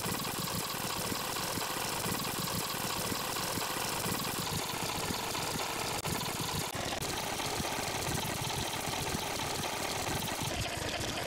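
Steady, engine-like mechanical whirring with a fast flutter, a fast-forward sound effect. Its texture shifts slightly a few times.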